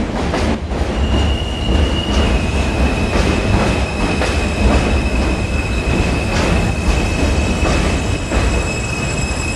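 R160 subway train pulling into a station and slowing: a heavy rumble with the wheels clacking over rail joints, the clacks spacing further apart as it slows. A high, steady squeal sets in about a second in and holds.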